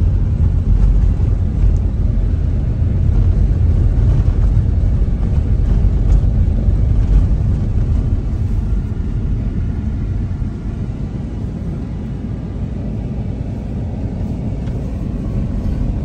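Steady low rumble of a car driving on an unpaved dirt road, heard from inside the cabin: tyre, road and engine noise, easing a little about ten seconds in.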